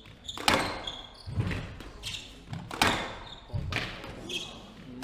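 A squash rally: the ball is struck hard by rackets and slaps off the walls and floor in a run of sharp cracks with thuds, about one a second. Shoes squeak briefly on the wooden court floor between shots.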